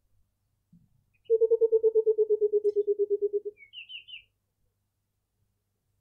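Burchell's coucal giving its bubbling call: a run of about twenty low hoots, about ten a second, dropping slightly in pitch. A brief high twittering from a smaller bird follows near the end.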